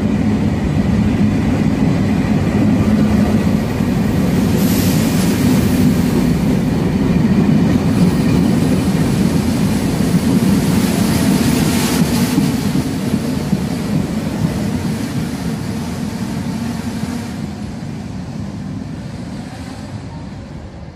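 Trenitalia TAF electric commuter train running past along the platform in an underground station, a heavy steady rumble with brief surges of high hiss about five and twelve seconds in. The sound fades steadily over the last several seconds as the train moves off down the line.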